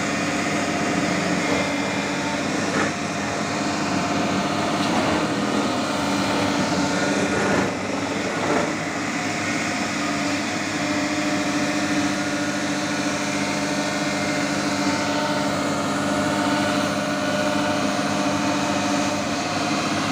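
An engine running steadily, an even hum with a few brief knocks in the first several seconds.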